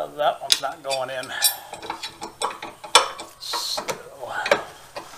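Irregular metallic clicks and clinks as the mower's electric PTO clutch and its steel mounting bracket are shifted and fitted by hand, with bolts and parts knocking against each other.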